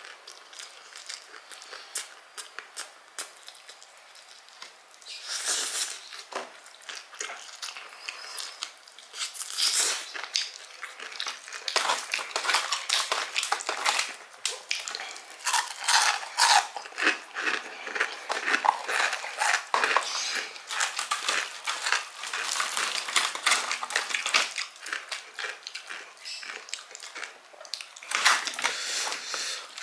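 Crunchy eating of crispy fried chicken with kremes crumbs: biting and chewing with many crackles and crunches, sparse at first and busiest from about twelve seconds in.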